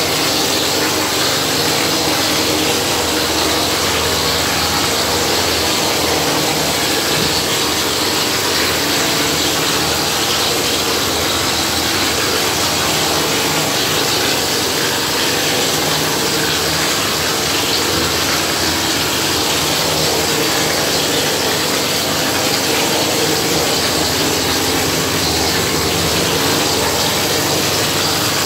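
Plaster spraying machine running steadily, its motor and pump feeding gypsum plaster through the hose to the spray lance, with a continuous hiss over a steady low hum.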